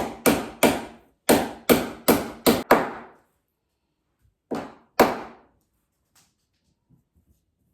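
Hammer driving a corrugated fastener into an aerated-concrete wall. There are about ten sharp, briefly ringing blows in quick runs over the first three seconds, then two more blows near the five-second mark.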